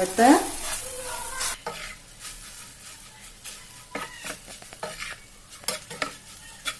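Spatula stirring spiced sliced okra in a frying pan while the oil sizzles, with scattered scrapes and knocks of the spatula against the pan.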